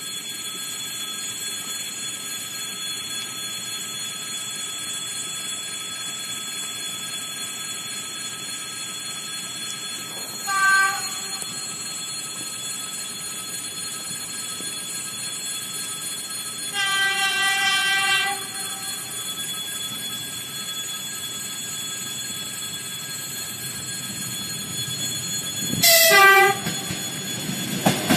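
EP2D electric multiple unit sounding its horn three times as it approaches a level crossing: a short blast about ten seconds in, a longer blast of about a second and a half around seventeen seconds, and another short blast around twenty-six seconds. Near the end, the train's running noise grows louder as it reaches the crossing.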